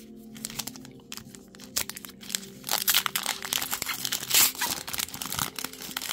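Foil wrapper of a Pokémon booster pack crinkling and tearing as it is opened: a dense run of sharp crackles, loudest about four seconds in.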